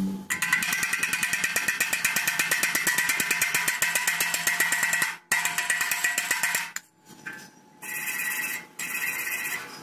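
Hand wire brush scrubbing a fresh stick-weld bead on square steel tube, in fast back-and-forth scratching strokes with a brief break about five seconds in. Near the end come two shorter bouts of scraping on the weld.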